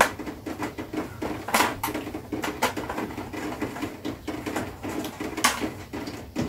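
Torx screwdriver backing screws out of an amplifier's chassis: a run of small scratchy clicks and ticks, with a few louder sharp clicks about one and a half seconds in and again near the end.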